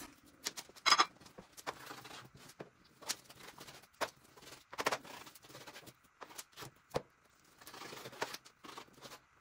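Knife cutting raw chicken breast into strips, with irregular sharp taps and soft slicing sounds between.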